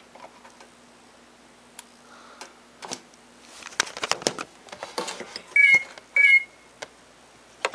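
Clicks and knocks of an iPod touch being pulled from and reseated in an iHome iP41 dock, with a faint steady hum in the first half. Near the end the iHome gives two short, loud electronic beeps a little over half a second apart.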